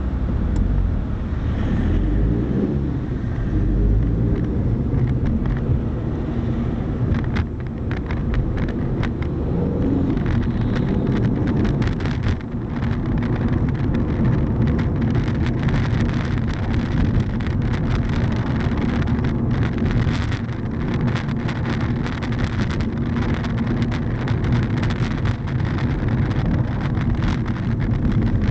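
A car running, with a steady low rumble and, from several seconds in, many short clicks or rattles throughout.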